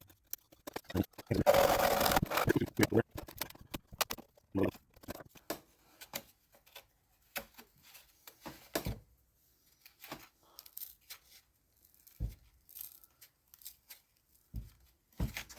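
Hand work on a model airplane at a workbench: a loud tearing, rasping sound about a second in that lasts roughly two seconds, then scattered light clicks, taps and knocks.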